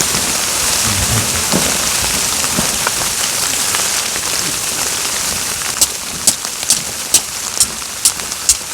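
Steady hiss of rain and wet snow falling. From about six seconds in, a run of sharp, evenly spaced clicks comes through it, about two a second.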